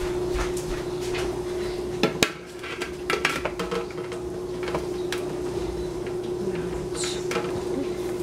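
Kitchen clatter: dishes, pots and utensils knocking and clinking at irregular moments, the loudest a pair of knocks about two seconds in, over a steady hum.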